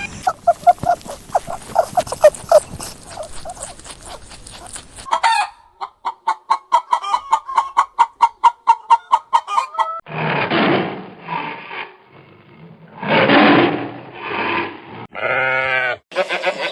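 Domestic chickens clucking in quick repeated calls. About ten seconds in, these give way to several longer, harsher calls like rooster crowing, and a short pitched call follows near the end.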